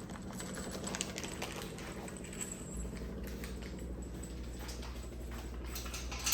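Scattered light clicks and rattles of small metal mounting hardware (bolts, lock washers and washers) being handled and sorted. A low steady hum comes in under it about a third of the way through.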